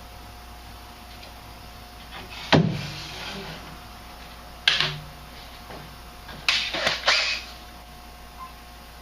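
Sharp knocks and clatters from work on a furnace's sheet-metal cabinet: one about two and a half seconds in, another near five seconds, and a rattling cluster near seven seconds, each ringing briefly.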